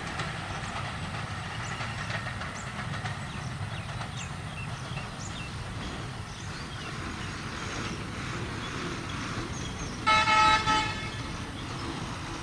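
Steady low rumble of engines and traffic at a level crossing, broken about ten seconds in by a vehicle horn honking twice in quick succession, loud and high-pitched.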